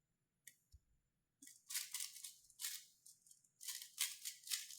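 3x3 Rubik's Cube being turned very fast in a speedsolve: quick, faint plastic clicking and clattering in rapid clusters, starting about a second and a half in.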